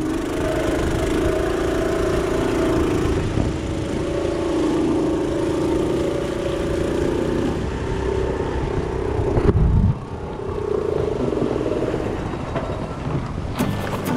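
Small engine of an outrigger fishing boat running steadily under way through surf, with rushing water and wind over it. A little past the middle there is a brief louder low rush, and then the sound drops for a moment.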